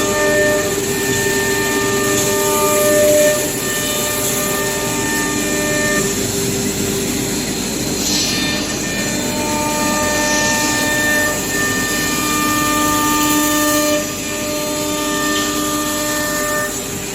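Leapion LR-1325E CNC router running: a mix of whining tones over a steady noise, the tones changing and switching off and on every few seconds as the machine's motors start and stop moving.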